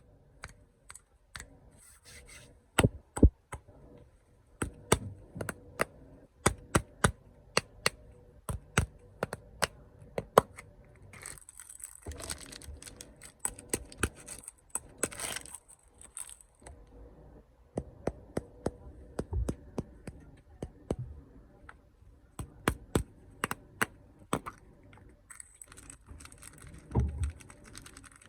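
Snack packaging being handled and unwrapped: many sharp, irregular taps and clicks, with crinkling of the plastic wrapper for a few seconds around the middle and again near the end.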